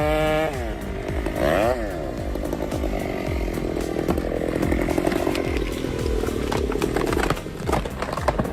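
Two-stroke chainsaw running and cutting into a tree trunk. The engine note drops off the throttle about half a second in, dips and revs back up, then runs on rougher under load, with a few sharp knocks near the end.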